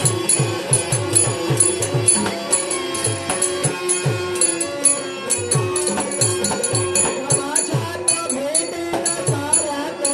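Instrumental Indian folk or devotional music: a hand drum beats low strokes in a steady rhythm while small jingling cymbals strike with it, over a held melodic tone.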